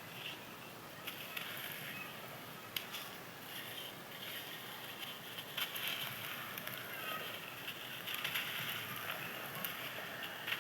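Crispy, dried sand clumps crunching and crumbling, a steady crackle made of many small sharp cracks.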